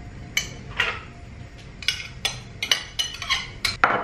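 A metal utensil scraping and tapping on small ceramic and glass dishes, about ten irregular sharp clinks, as chopped onion is pushed off a plate into a glass dish.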